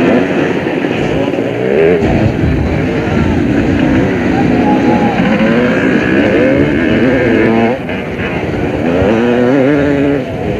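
Several motocross bikes racing, their engines revving up and down with the pitch rising and falling over and over, with a brief dip in level about eight seconds in.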